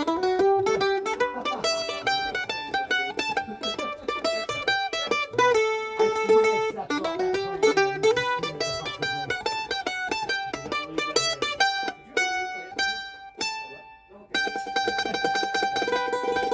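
Gibson A1 mandolin played with a pick: a fast run of single notes, a few notes left ringing about twelve seconds in, then a tremolo-picked note held near the end.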